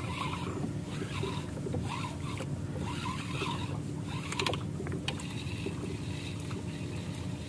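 Steady low motor hum with water sloshing against the hull of a small boat, and a few faint clicks about four and a half seconds in.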